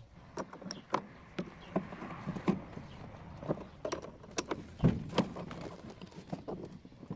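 Irregular clicks and knocks from tools and parts being handled while a Hitachi top-loading washing machine's gearbox is taken apart, the loudest knock about five seconds in.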